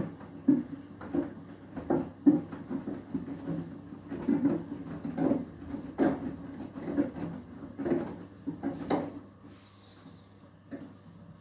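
Beko WTK104121W front-loading washing machine in its Eco 40 final rinse: wet laundry tumbling in the turning drum, thudding and swishing one or two times a second over a steady low hum. The tumbling stops about ten seconds in as the drum pauses.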